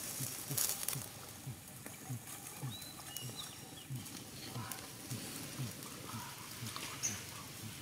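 An animal call: short, low notes that fall in pitch, repeated steadily about two or three times a second, with a brief high chirp near the middle.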